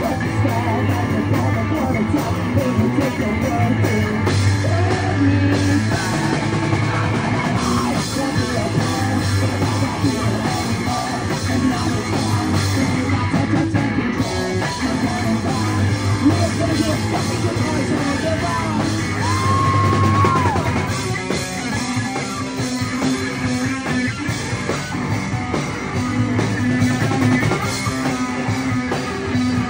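Live rock band playing: electric guitar, bass and a drum kit, with the drummer singing into a microphone.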